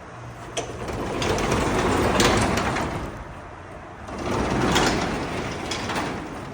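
Sectional garage door, just repaired with a new section and re-tensioned cables, rolling along its tracks: a rumbling rattle that swells and fades twice, with a few sharp clicks.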